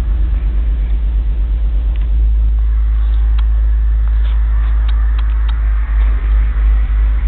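Car-audio bass from Kicker CVR 12-inch trunk subwoofers, heard muffled through a storefront's glass: a loud, deep, pulsing boom. A few light clicks come midway.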